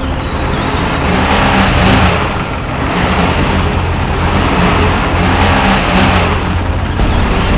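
A vehicle engine running, its level rising and falling with a brief dip about two and a half seconds in.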